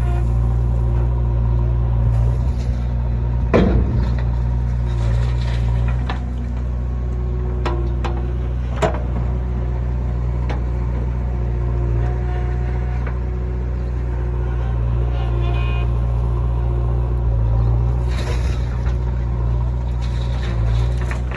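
JCB 3DX backhoe loader's diesel engine running steadily under load while loading murum, with a few sharp knocks: one about three and a half seconds in and two around eight to nine seconds in.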